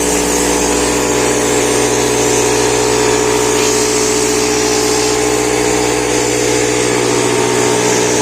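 Air compressor running steadily: a constant motor hum with a hiss over it.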